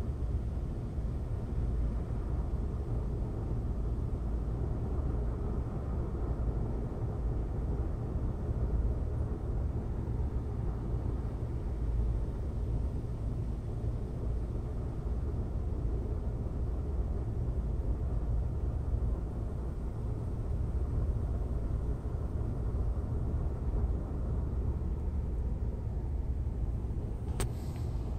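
Steady low rumbling background noise, with a single sharp click about a second before the end.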